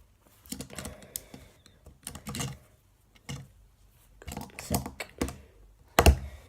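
Lego plastic pieces being handled as a minifigure is fitted into a small Lego car: several short bursts of light clicking and clattering, with a louder knock near the end.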